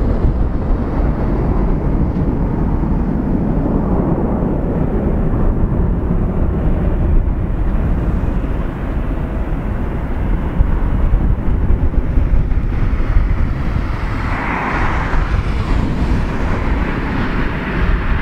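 Twin-engine jet airliner's engines at takeoff power as it rolls down the runway: a loud, steady low rumble with a rushing hiss. About three-quarters of the way through, a higher whooshing tone swells briefly and fades.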